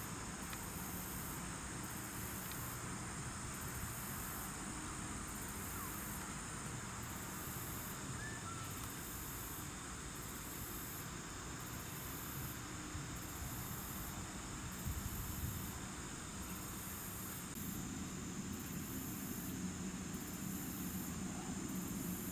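Insects calling: a high buzz that pulses on and off about once a second over a steady high trill, with a low rumble underneath.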